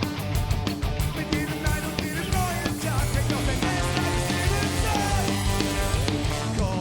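Loud rock music with sharp drum and cymbal hits in the first second or so, then a steady bass line under guitar parts.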